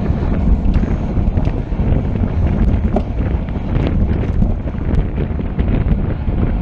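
Heavy wind noise on the microphone of a camera riding along at bicycle race speed. It is a loud, steady low rumble with scattered small clicks and rattles.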